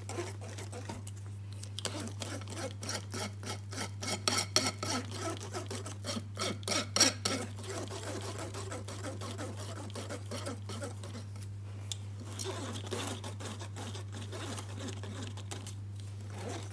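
Kitchen utensil clicking and scraping against a mixing bowl in quick strokes, busiest in the first half and then lighter, over a steady low hum.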